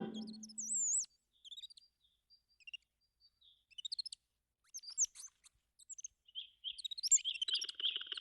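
Sparrow chirping in short, scattered high tweets and quick glides, growing denser and louder near the end.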